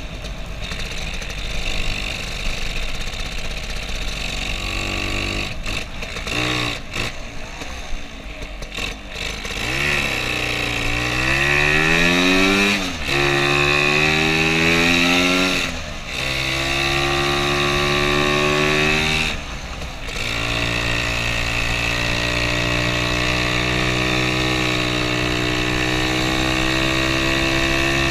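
Lambretta scooter's two-stroke single-cylinder engine under way, low and uneven for the first several seconds, then pulling away with its note rising in pitch, dipping briefly three times as it is shifted up through the gears, and settling into a steady cruise.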